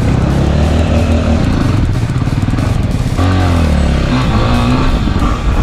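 Single-cylinder four-stroke dirt bike engine running hard under throttle while riding a dirt track, with wind noise on the helmet camera. The revs change about three seconds in, as at a gear shift.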